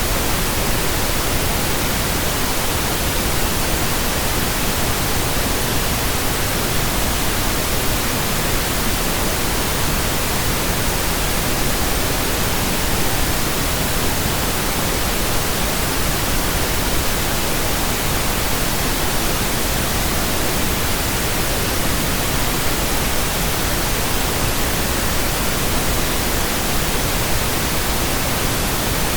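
Steady pink noise: an even, unbroken hiss like soft static from a radio not tuned to a station.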